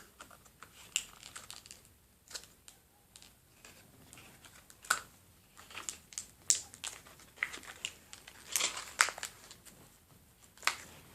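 Toothbrush packaging being crinkled and torn open by hand: irregular sharp crackles and rustles, some louder than others.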